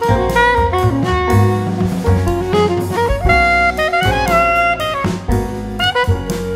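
Jazz music as a soundtrack: a saxophone melody moving through quick notes over a drum kit keeping a steady beat.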